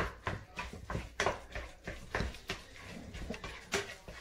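A metal utensil stirring and mashing a mackerel and egg patty mixture in a glass bowl, clicking and scraping against the glass in a series of irregular strokes, about two to three a second.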